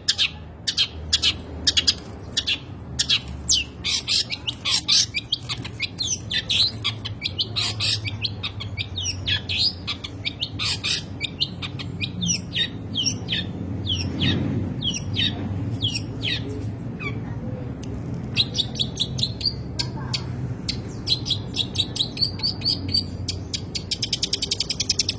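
Long-tailed shrike (cendet) singing a rambling, varied song of sharp chirps and quick downward-sweeping notes, rich in mimicked phrases, with a fast trill near the end.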